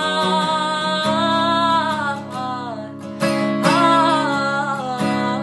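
A song sung over strummed acoustic guitar, the voice holding long notes; the music drops briefly about three seconds in before the guitar strums again.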